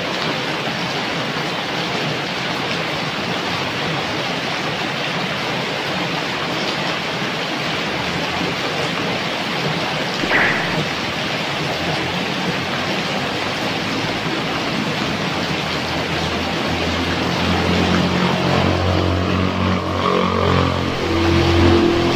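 Steady rain falling, with a stream of runoff from the roof edge splashing into a puddle on gravel. A brief louder sound comes about ten seconds in, and a low rumble rises in the second half and grows louder near the end.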